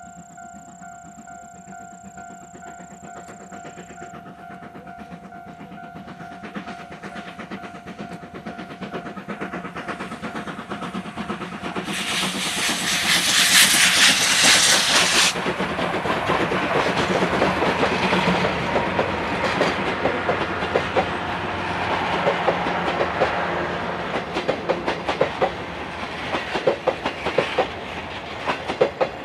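C56 steam locomotive double-headed with a DD51 diesel locomotive approaching and passing, hauling a train of coaches. It grows louder over the first half, with a loud burst of steam hiss as the locomotives pass about 12 to 15 seconds in. After that comes a steady rapid clatter of the coaches' wheels over the rail joints.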